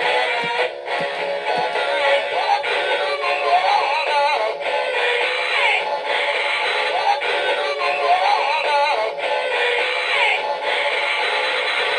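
Big Mouth animatronic singing fish toy playing its song through its small built-in speaker: a tinny, thin-sounding recorded voice singing over music, with its repaired mouth and tail gears working.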